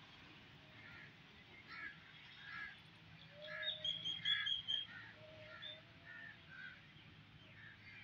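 Birds calling: a run of short harsh calls repeating about once a second, with a brief burst of higher chirping about halfway through.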